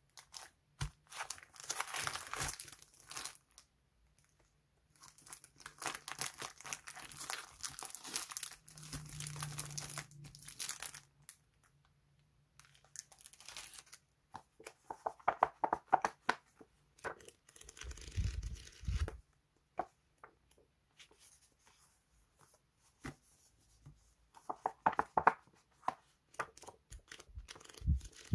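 Clear plastic packaging sleeves crinkling and paper sticker sheets rustling as they are pulled out and handled, in several irregular bursts, with a soft low thump a little past halfway.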